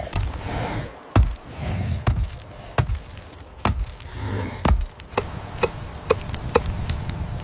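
Heavy chopping blows of stone into a carcass, about one a second, each with a dull thud. About five seconds in they give way to lighter, quicker knocks, about two a second.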